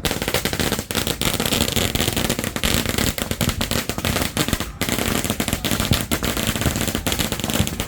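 Firecrackers going off in a dense, unbroken rattle of sharp bangs, with a brief break about halfway through.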